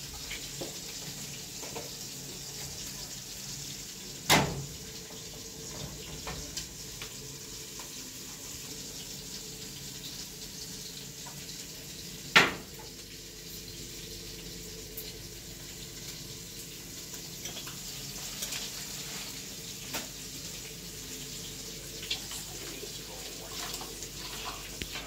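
Pots and pans worked at a gas stove: a steady hiss runs under light clatter, with two sharp, loud knocks about four and twelve seconds in.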